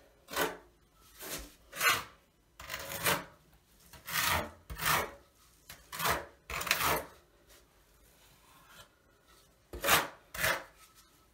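A steel trowel scraping and spreading thinset mortar on the shower tray around the drain in about a dozen short strokes. There is a pause of a couple of seconds before the last two strokes.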